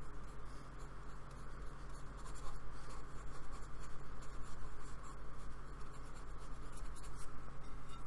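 Small paintbrush working acrylic paint onto a black card sketchbook page: rapid scratchy brushing strokes, over a steady low hum.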